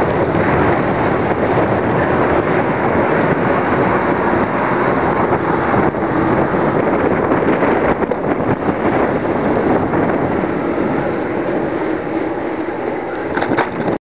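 Wind buffeting the microphone of a camera riding on a moving bicycle: a loud, steady rush of noise that eases a little near the end.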